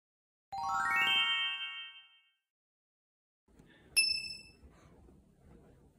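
Edited-in chime sound effects: a quick rising run of bright ringing notes about half a second in, fading out by about two seconds, then after a pause a single sharp ding about four seconds in over faint room tone.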